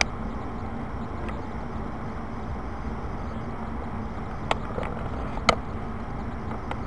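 Steady low rumble of background room noise with a faint hum, broken by two sharp clicks about four and a half and five and a half seconds in, the second louder.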